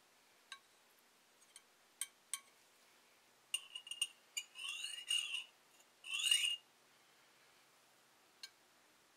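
Specks of nickel hydrazine nitrate (NHN) burning with odd sounds: scattered sharp pops and ticks, and in the middle a run of short, high chirping whistles whose pitch glides up and down. The loudest chirp comes about six seconds in.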